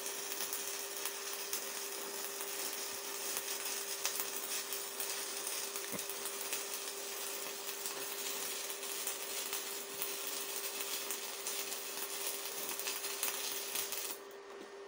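Stick-welding arc crackling and hissing steadily, with a steady hum under it: an Evrolux IWM190 inverter welder burning a basic-coated LB-52U electrode on an overhead weld. The arc breaks off about a second before the end.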